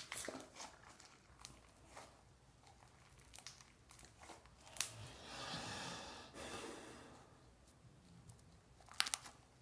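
Faint sticky handling noises of homemade borax-and-glue slime being squished and pulled by hand, with a few small clicks and a short soft hiss in the middle.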